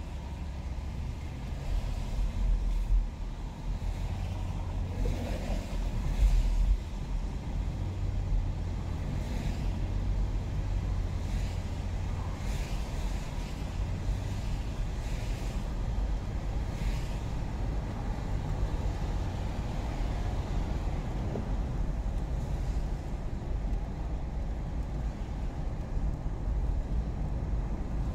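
Car driving on wet roads, heard from inside the cabin: a steady low rumble of road and engine noise, with louder low swells about two and six seconds in.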